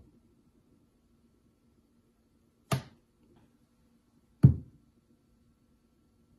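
Two short, dull knocks about a second and a half apart: a piece of fruit, an orange and then a banana, bonked down on a kitchen countertop.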